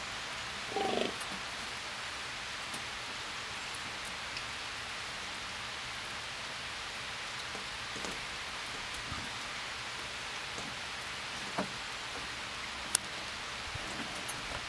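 A fallow buck's rutting groan, one short low call about a second in, then a steady even hiss with a few faint ticks.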